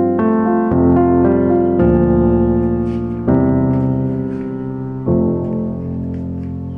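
Background piano music: slow, sustained chords, a new one struck every second or two and each left to ring and fade.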